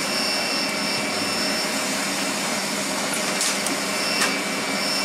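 A steady blowing whir from a shop machine, with a few light metal clicks as a pick works at springs inside a differential locker.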